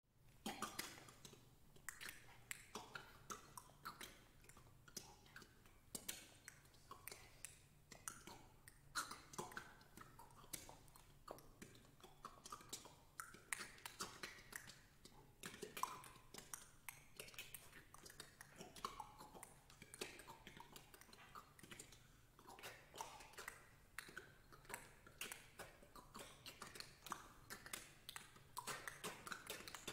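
Six singers making a dense, irregular stream of short mouth clicks, tongue clicks and lip pops, with brief high squeaks and pitch glides among them. These are extended vocal techniques in a contemporary piece for six voices.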